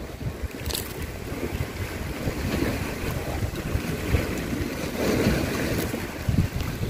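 Wind buffeting the microphone in uneven gusts, growing gradually louder.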